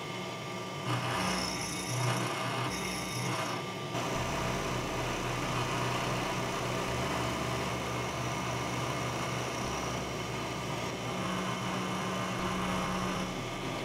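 Vertical milling machine running a 5/16-inch end mill through a metal block to cut a slot: a steady motor and spindle hum with the noise of the cutter in the metal, a little uneven in the first few seconds, then even. It is a heavy cut that the machinist doubts the mill likes.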